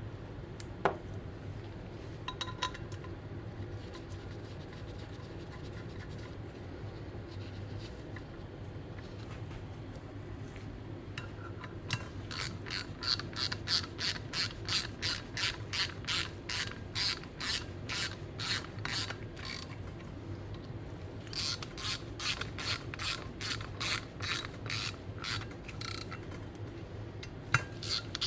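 Hand ratchet wrench clicking as it runs down the bolts on a turbo housing, about three clicks a second, in two long runs starting about twelve seconds in. The bolts are being brought down to snug, not fully tightened.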